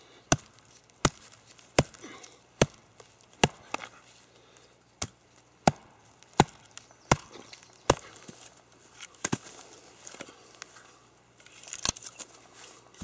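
A wooden baton striking the spine of a Terava Skrama heavy carbon-steel knife, batoning it down through a log: a dozen or so sharp knocks, about one every three-quarters of a second, with a longer pause in the second half. A brief rustle comes near the end.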